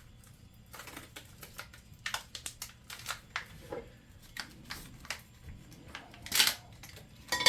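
Hands working at plastic packaging to open it: a string of small clicks and crackles, with a louder rustle about six and a half seconds in.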